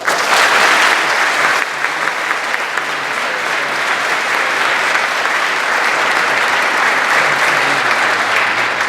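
A large crowd applauding, starting suddenly and holding a steady, dense clapping before fading away.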